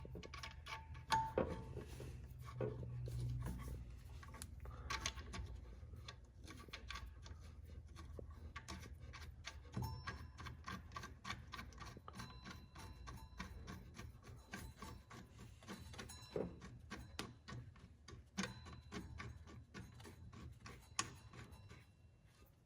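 Scattered light metallic clicks and rattles of bolts and brace hardware being handled and threaded while an alternator brace is fitted, over a faint low hum.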